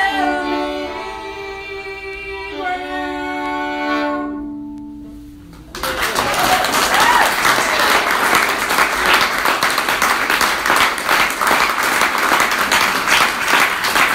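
A fiddle tune sung along with ends on long held notes that fade away about five seconds in. An audience then claps and applauds steadily to the end.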